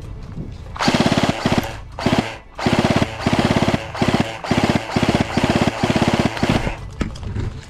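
G&G F2000 airsoft electric gun, stock and unupgraded, firing full-auto: a string of short, fast rattling bursts, about nine of them over six seconds, starting about a second in.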